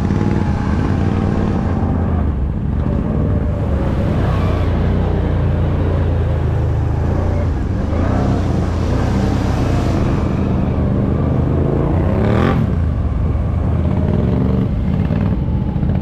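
ATV engine running under load through muddy water, its pitch rising and falling as the throttle is opened and eased, with a sharp rev about twelve seconds in.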